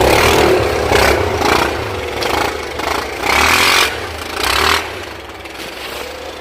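Off-road vehicle engine running and revving unevenly while driving through snow, with repeated loud rushes of noise about a second apart that ease off near the end.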